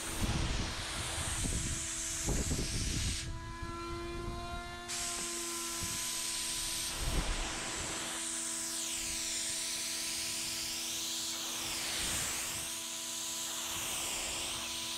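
HVLP spray gun hissing steadily as it sprays a lacquer topcoat, with a steady whine underneath. The hiss eases off briefly about three seconds in, then carries on.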